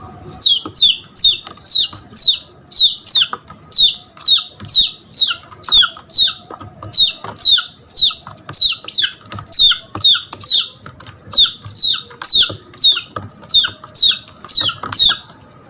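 Red junglefowl chick giving loud, repeated falling peeps, about two to three a second: the distress call of a lost chick calling for its mother.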